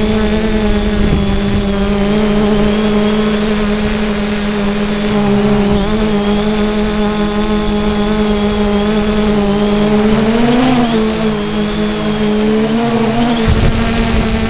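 Multirotor drone's electric motors and propellers humming steadily, heard close up through the drone's onboard camera. The pitch wobbles briefly about ten and a half seconds in and again near thirteen seconds as the motors change speed, over a low rumble on the microphone.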